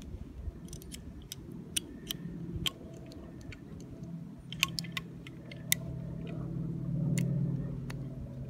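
Scattered light clicks and taps from a partly disassembled stainless-steel .357 Magnum revolver being handled, with its cylinder pin out. A low steady hum runs underneath and swells about seven seconds in.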